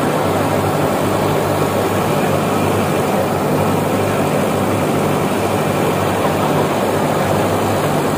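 Ooty rack-and-pinion steam locomotive standing while its water tank is filled: a steady rush of water pouring from a hose into the tank, mixed with steam hiss and a constant low hum.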